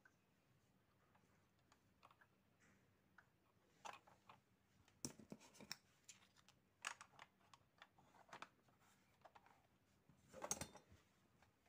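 Near silence with a few faint, scattered clicks and taps, the clearest near the end.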